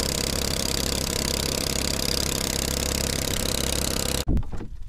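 Boat engine running steadily under a heavy hiss, cutting off abruptly about four seconds in.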